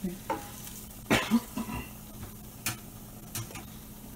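A few scattered kitchen clatters, dishes and utensils knocking, the loudest pair about a second in, over a faint steady hum.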